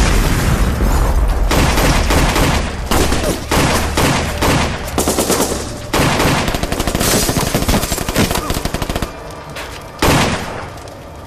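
Heavy gunfire from several automatic weapons in rapid volleys, over a deep rumble in the first few seconds. The firing thins out after about nine seconds, with one last loud burst near the end.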